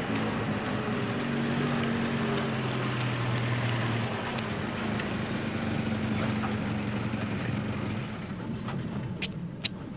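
A car engine running at low speed as the car pulls in and stops; the engine sound dies away about eight seconds in, followed by a few sharp clicks near the end.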